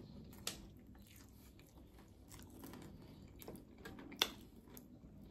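Faint chewing and biting on chicken wings: soft wet mouth sounds with scattered sharp clicks, the sharpest a little past four seconds in.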